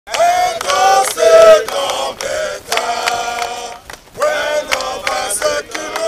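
Male voices singing a chant-like song in held notes, with a short break about four seconds in.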